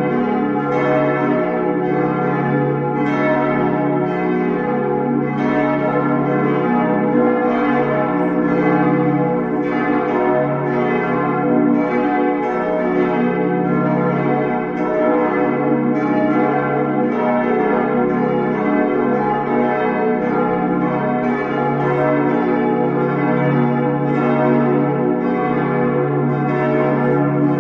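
The full peal of a church's bells: several bells swinging and striking in a steady, irregular stream of overlapping strokes, their tones ringing on and blending into one continuous sound.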